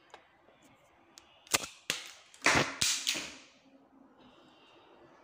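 About five sharp knocks and bumps in quick succession, starting about a second and a half in, the loudest near the middle: handling noise from the hand-held phone that is recording as it is moved about.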